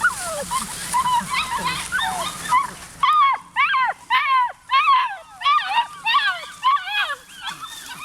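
German Shorthaired Pointer puppies, seven weeks old, whining and yipping in many short high calls that fall in pitch. About three seconds in, the background hiss drops away and a run of louder whines follows, about two a second.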